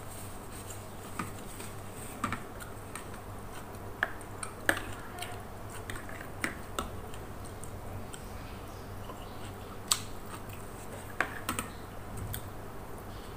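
Metal spoon and fork clicking and scraping against a plastic bowl: scattered sharp clicks, a second or so apart, over a faint steady low hum.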